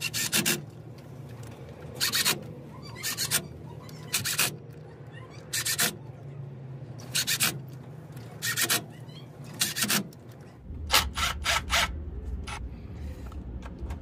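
Cordless impact wrench on a low setting, running the differential cover bolts down snug in short zips about a second apart, with a quicker run of short zips near the end.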